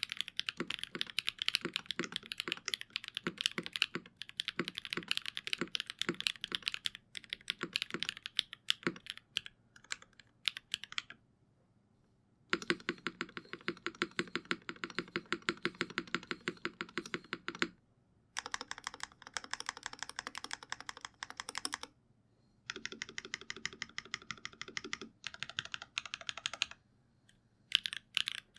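Custom TGR x GAF 910 65% mechanical keyboard being typed on: a polycarbonate case with an aluminium plate, stock Sarokeys x Geon BCP switches and GMK Klassiker keycaps. Steady typing comes first. Then there are three fast, dense runs of keystrokes with pauses of about a second between them, and typing picks up again near the end.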